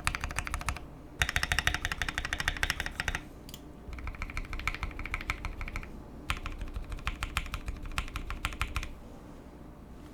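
Keychron Q1 mechanical keyboard with lubed Gateron Oil King linear switches and a tape-modded PCB being typed on in fast runs of keystrokes, four bursts with short pauses between them, the second the loudest. The typing stops about nine seconds in.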